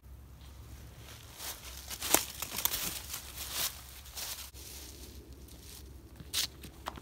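Footsteps crunching and rustling through dry fallen leaves close by, an irregular run of crackles, with a few sharper scuffs near the end as the player steps onto the tee pad for a throw.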